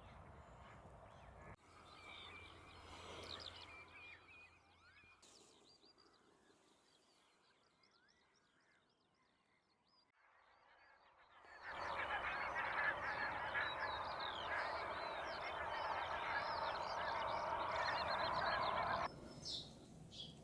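Wetland waterbirds calling: a mix of scattered calls at first, fading to a faint stretch, then a loud, dense chorus of many short calls from a flock for about seven seconds that cuts off abruptly.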